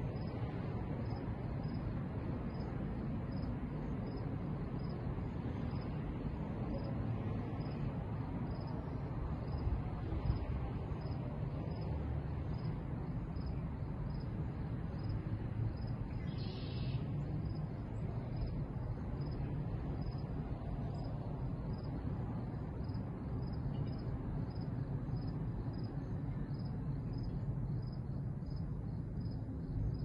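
Crickets chirping steadily at about two high chirps a second, over a low steady rumble.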